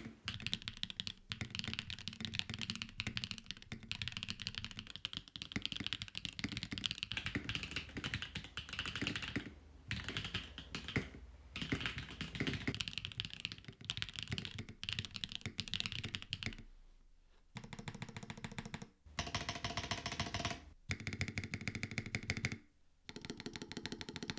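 Typing on a Mode 65 mechanical keyboard with Owlab Neon switches, PBT Cannoncaps keycaps, a POM plate and a stack mount. The keystrokes sound clacky. For about the first sixteen seconds it is a continuous fast stream of keystrokes; after that the typing comes in four or five short bursts with brief pauses between them.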